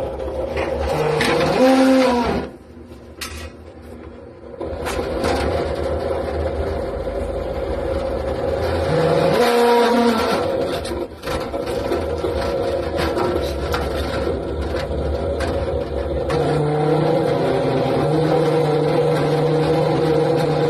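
Steady motor-like hum from running machinery, with a brief rise and fall in pitch twice and a drop in level for about two seconds near the start.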